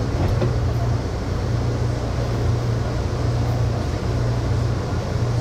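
Amtrak Southwest Chief passenger train running, heard from on board: a steady low hum over an even rumble, with no breaks or changes.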